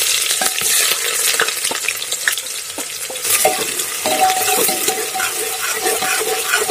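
Sliced onions sizzling as they fry in hot refined oil in a pressure cooker, with a metal spoon scraping and clicking against the pot as they are stirred. The sizzle is loudest in the first second, just after the onions go into the oil, then settles to a steady hiss.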